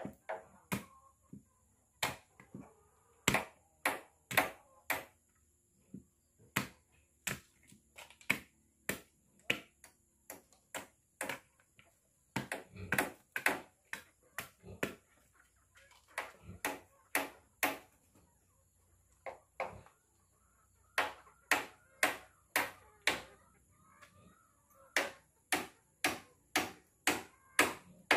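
Repeated sharp wooden knocks, about two a second in runs of several with short pauses, as a forked branch post is worked into a stump to stand as a chicken roosting perch.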